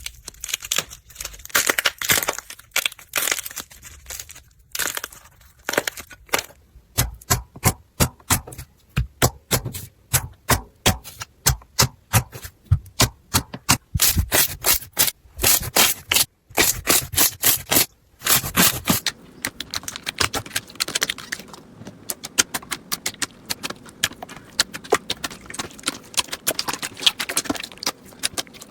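Slime being squeezed and poked by hand, making sharp crackling pops and clicks. Through the middle the pops come one by one in a quick, fairly even run, and over the last third they turn into a denser, finer crackle.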